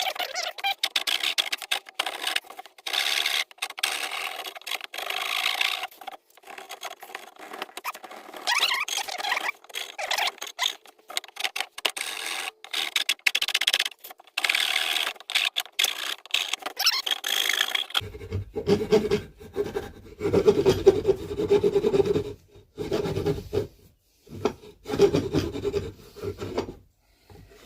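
Hand file rasping along the edges of wooden pieces to clean them up, in repeated strokes with short pauses. About eighteen seconds in, the strokes turn lower and heavier.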